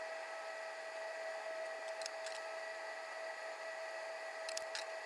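Cumin seeds heating in oil in a frying pan, under a steady fan-like hiss with a constant whine. A few faint crackles come in pairs about two seconds in and again near the end, as the seeds begin to pop.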